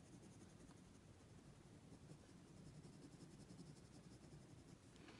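Faint scratching of a mechanical pencil shading on drawing paper, in short repeated strokes.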